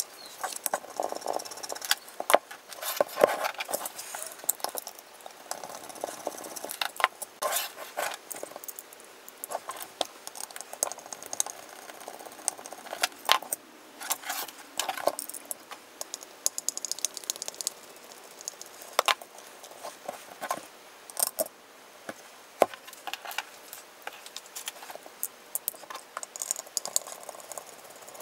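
Irregular metallic clicks, taps and small rattles of a screwdriver and loose screws against an aluminium housing while it is being unscrewed and taken apart.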